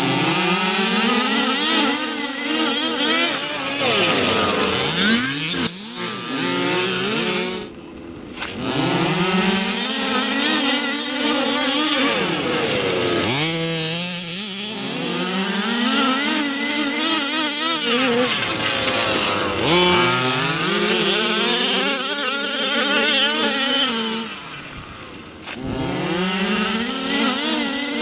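Several 1/5-scale petrol RC cars' small two-stroke engines open up all at once as the race starts, then rev up and down again and again as the cars race. Several engine pitches overlap, and the sound drops briefly about eight seconds in and again around twenty-five seconds.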